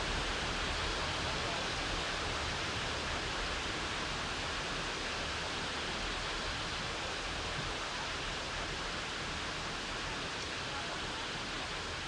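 Steady, even rushing outdoor background noise with no distinct events, easing slightly in level toward the end.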